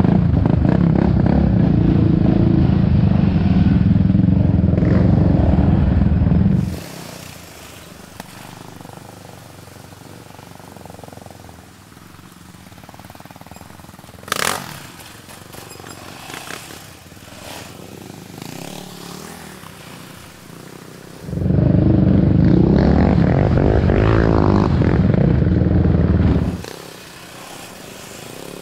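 Yamaha Raptor 700 single-cylinder ATV engine running loud and steady while riding a dirt trail. It drops suddenly to a much quieter background about six seconds in and comes back loud for about five seconds near the end. A short sharp clatter sounds about halfway through the quiet stretch.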